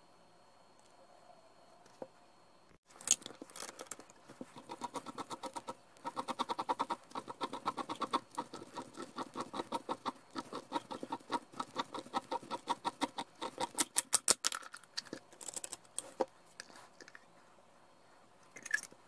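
Oil filter cutter tool slicing through the end of a steel oil filter canister as the can is rolled in it by hand: a rapid, even run of clicks and scrapes, about five a second, starting about three seconds in and dying away about sixteen seconds in. A brief clatter near the end.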